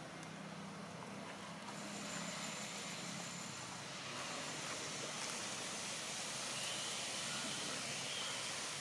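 Steady outdoor background hiss with no distinct event. A low hum is present for the first few seconds, and a faint, thin high-pitched tone joins about two seconds in.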